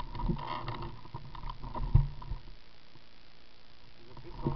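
Light knocks and rattles of a ride over a bumpy dirt forest track, with one heavier knock about two seconds in and a faint steady whine underneath.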